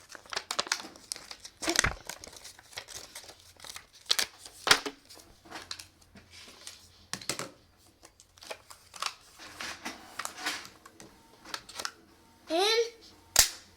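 Paper rustling and crinkling as it is handled, with sharp, irregular clicks and clacks of a hole punch being worked, the loudest near the end.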